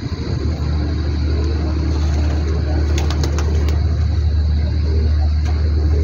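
Steady low engine rumble, with pigeons cooing faintly over it. A quick run of light clicks comes about halfway through.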